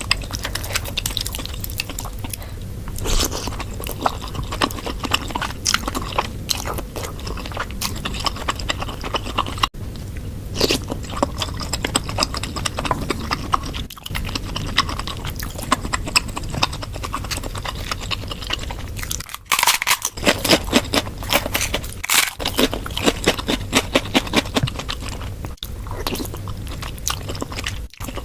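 Close-miked mukbang eating sounds of spicy bakso (Indonesian meatball soup): steady chewing with wet clicks and crunchy bites, thickest about twenty seconds in.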